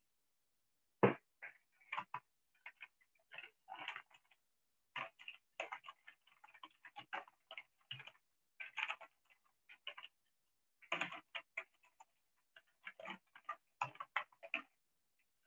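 A run of irregular light clicks and taps, several a second, broken by short pauses; the sharpest click comes about a second in.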